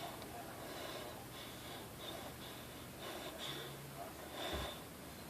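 A woman's quiet breathing, with short sniffs and catching breaths between sneezes, nose still irritated; a few soft breaths come early, a little after three seconds and near the end.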